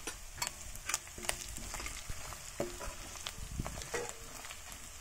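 Chopped onions and ginger-garlic-green-chilli paste sizzling in hot oil in a stainless steel kadhai, with a steel ladle scraping and clicking against the pan as it stirs.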